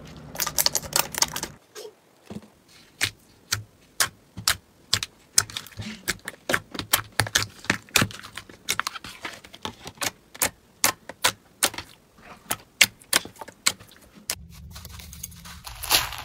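Slime being worked by hand, giving a run of sharp, irregular clicks and pops, several a second.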